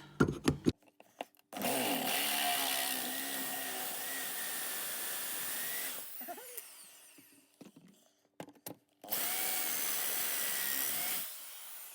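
Electric drill run twice with a reground twist bit pressed into steel, a steady high squeal over the motor each time, and the motor winding down after each run. The bit is blunt and is not cutting, which the driller takes to mean it is ruined.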